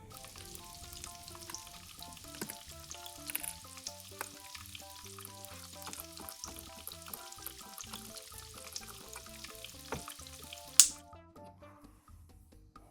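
Frying sizzle sound effect, a crackling hiss with small pops, over light background music. A sharp loud click comes near the end, and the sizzle stops just after it.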